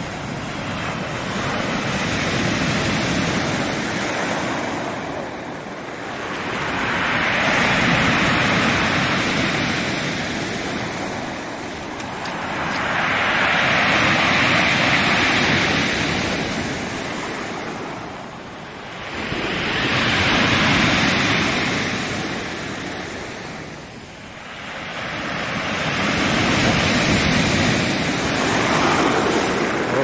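Heavy storm surf breaking on a pebble beach, each wave crashing in and washing back over the stones. It swells and fades in slow surges about every six seconds.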